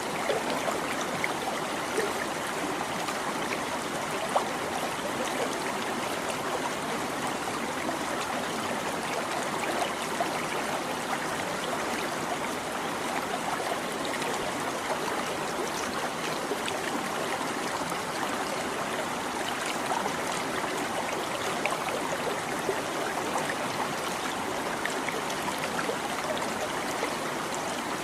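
Small stream babbling and trickling steadily, with many little splashes and gurgles.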